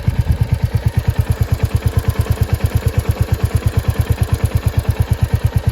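Royal Enfield Hunter 350's single-cylinder engine idling with an even, rapid beat of about ten pulses a second, carrying the tick that the owner hears from the timing-chain side. From what he has read, he takes it for timing-chain noise, which he thinks affects only the sound, not how the bike runs.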